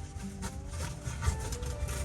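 Background music with held notes, over light, irregular scraping and tapping.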